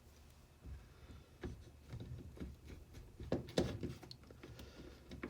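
Faint scattered clicks and light knocks of a plastic cordless drill being handled during reassembly, a few stronger knocks about a second and a half and three and a half seconds in.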